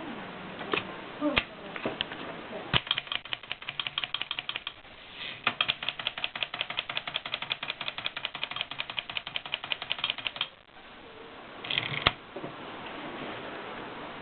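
1920s Erika typewriter being typed on: a few single keystrokes, then two quick runs of rapid, even keystrokes, the second lasting about five seconds. After a short pause comes a brief clatter ending in one loud sharp click.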